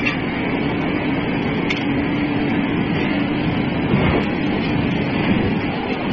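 Steady rumbling machinery noise from a forging hammer shop. A low hum runs through it and stops about five seconds in, and there are a couple of faint knocks, with no hammer blow landing.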